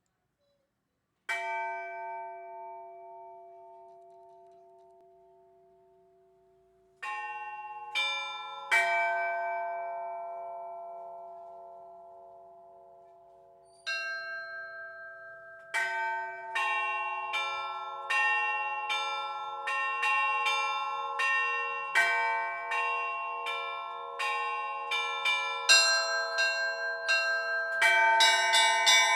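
Church bells being rung: after about a second of silence, a few single strikes ring out and die away slowly. From about halfway in, several bells of different pitches strike faster and faster, building into a full peal that is loudest and densest near the end.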